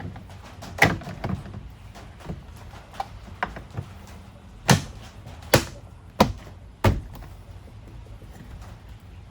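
Plastic interior door trim being pressed and snapped into place on a van door: a string of sharp knocks and clicks, with a few louder thumps in the middle.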